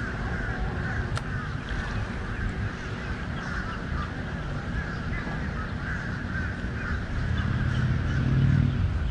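Birds calling and chattering steadily, over a low rumble that swells near the end.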